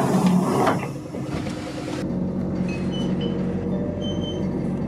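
Inside a moving city bus: steady running noise of the bus, with a louder rush of noise in the first second.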